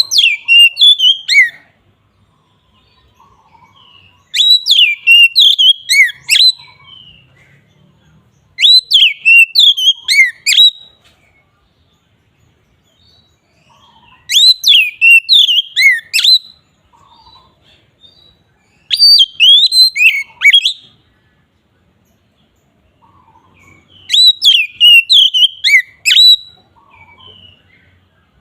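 Oriental magpie-robin (kacer) singing in the loud, open 'ngeplong' style: six phrases of clear whistled, sliding notes, each about two seconds long, coming every four to five seconds with quiet gaps between.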